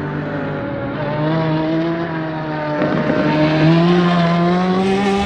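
Race car engine sound, a steady engine drone that slowly climbs in pitch, with a brief whoosh about three seconds in.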